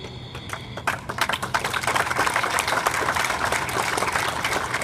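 Audience applauding: a few scattered claps about a second in build quickly into steady clapping.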